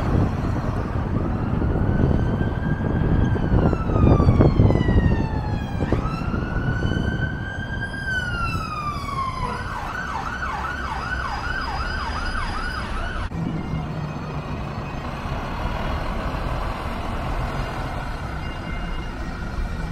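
Emergency vehicle siren in a slow wail, rising and falling twice, then switching to a fast yelp of about three cycles a second that cuts off suddenly after about thirteen seconds. Street traffic rumbles underneath.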